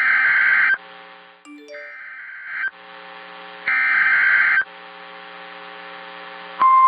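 Emergency Alert System SAME header: three harsh digital data bursts of about a second each, a second apart. Near the end a loud, steady single-pitched EAS attention tone begins.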